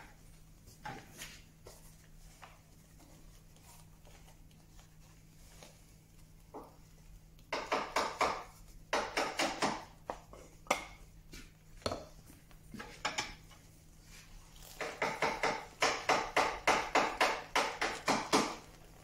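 Hand-lever paper briquette press being loaded with sawdust mix and worked: two spells of rapid, light metallic clattering and knocking, with odd single clicks between.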